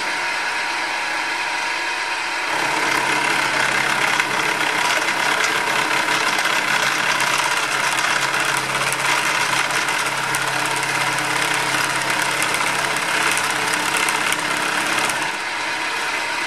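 Hare and Forbes HM48 milling machine running, then about three seconds in a small carbide-insert face mill bites into a steel block on a 2 mm deep cut: a rough, crackling cutting noise over the machine's hum, ending shortly before the end. The inserts are struggling with the cut, taken as the wrong tool for the job.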